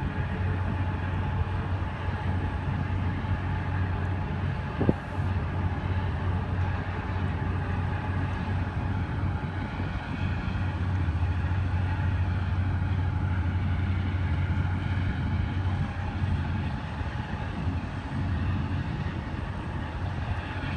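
Steady low drone of a boat's engine, heard on board while underway, with a rush of water and wind over it. A single sharp knock about five seconds in.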